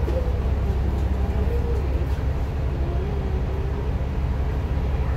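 KMB bus heard from inside the cabin while running: a steady low engine rumble, with a whine that wavers and dips in pitch around the middle.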